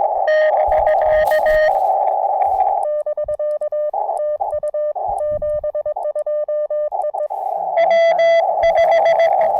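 Morse code tones from an amateur radio transceiver on CW, a steady note of about 650 Hz keyed on and off. At the start and again near the end it is a received signal sitting in filtered band hiss. From about three to seven seconds in it is clean sidetone with silent gaps, the operator's own sending while the receiver is muted.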